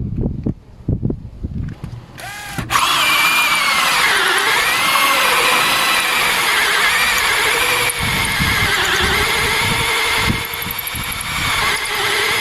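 Electric drill boring a lock hole through a door for a deadbolt. It starts about two seconds in after a few knocks, then runs steadily, its pitch sagging and recovering a couple of times under load.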